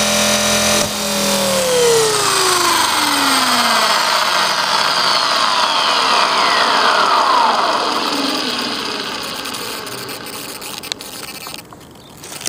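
Blade 400 electric RC helicopter's brushless motor and rotor head whining at a steady pitch, then spooling down about a second in, the whine falling in pitch and fading over several seconds as the rotors coast to a stop. A single sharp click near the end.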